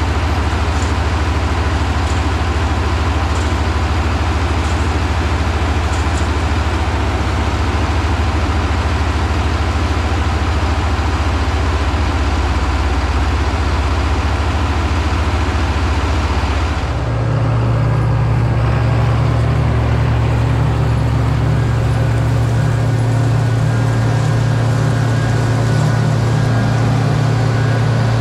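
Large diesel farm machinery running steadily: a continuous engine drone with a strong low hum and a layer of hiss. About seventeen seconds in the sound changes abruptly to a steadier engine hum with less hiss.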